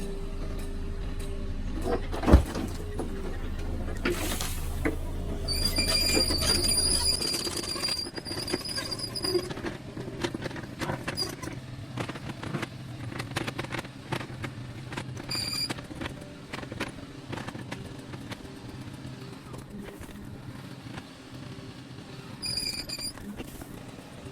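Excavator working among large stones: its engine runs with a low hum that drops away about seven seconds in. A sharp bang comes about two seconds in, there are high squeals several times, and stones knock and clatter.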